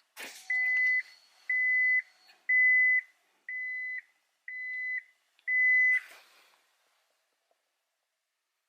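2000 Honda Accord's dashboard warning chime beeping six times, about once a second at one steady pitch, just after a click as the ignition is switched on.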